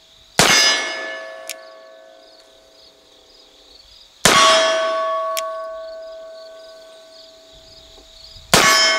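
Three shots from a Colt Richards conversion revolver in .44 Colt, about four seconds apart, fired one-handed. Each shot is followed by a long metallic ringing that slowly fades.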